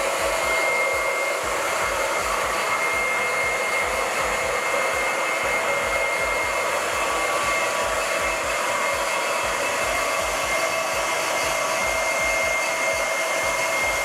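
Small electric transfer pump running steadily with a thin whine over its whir. It is circulating vinegar descaling solution from a bucket through a tankless water heater's heat exchanger to flush out hard-water scale.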